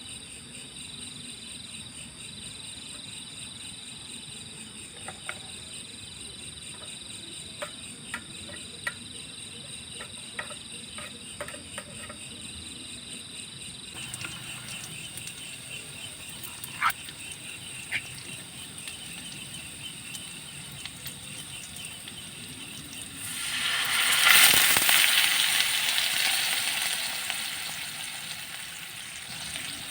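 Insects and frogs calling steadily in a high, pulsing chorus, with a few scattered clicks. Later a loud rushing noise swells up, then fades over a few seconds.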